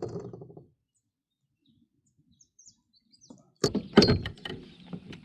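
A short burst of sharp knocks and clatter about three and a half seconds in, after an almost silent stretch. Faint bird chirps can be heard before and after it.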